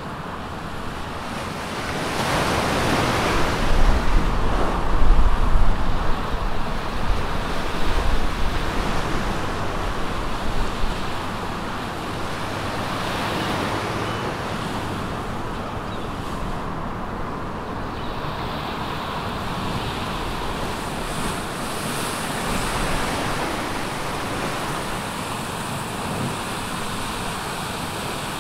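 Sea surf, a steady wash of waves, with wind on the microphone. It grows louder and rougher from about two seconds in until about eleven seconds in, then settles to an even rush.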